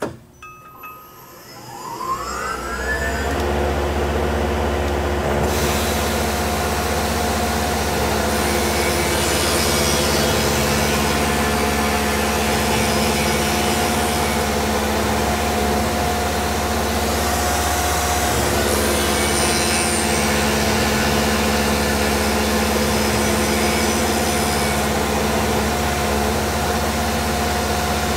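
Tormach PCNC milling machine's spindle spinning up with a rising whine over the first couple of seconds, then running steadily while the end mill cuts a pocket into a rifle stock. A steady hiss joins about five seconds in.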